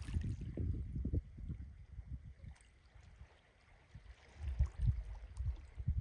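Wind buffeting the microphone in uneven low gusts. It eases off in the middle and picks up again about two-thirds of the way through.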